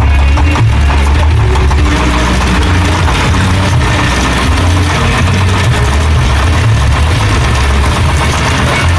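Stationary diesel engine driving a Ferris wheel ride through a belt and pulley, running steadily and loudly with a low, uneven pulsing beat.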